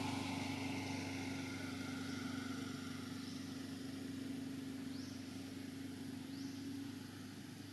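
Low, steady engine hum of a distant motor vehicle, fading a little near the end, with a few faint short high rising chirps over it.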